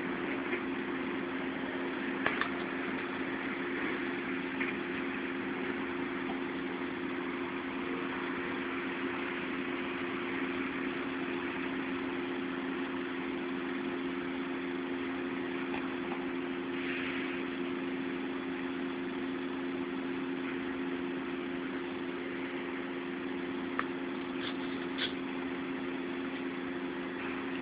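Steady mechanical hum: two constant low tones over a steady hiss, with a few faint clicks.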